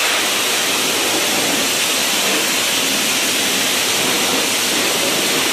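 High-pressure water jetter lance spraying into a channel drain, a loud steady hiss of water blasting grease and grime off the channel.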